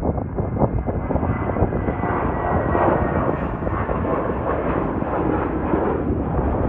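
United Airlines Airbus A319 twin-engine jet climbing out after takeoff, its engines giving a steady, dense jet rumble, with a faint high whine that sinks slightly in pitch over the first few seconds.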